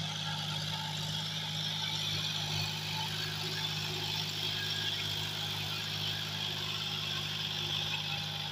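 John Deere tractor's diesel engine running steadily under load as it pulls a disc harrow, with a steady hiss over the engine drone.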